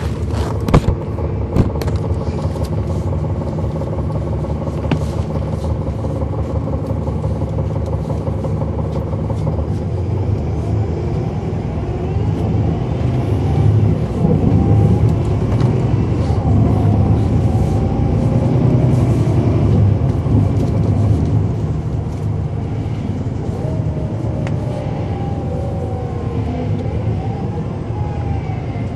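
The Cummins ISL9 inline-six diesel of a 2009 NABI 40-SFW transit bus, heard from on board, running, with its ZF Ecomat six-speed automatic whining in rising and falling pitches as the bus gets under way. The engine grows louder about halfway through, then eases off. A couple of sharp knocks sound about a second in.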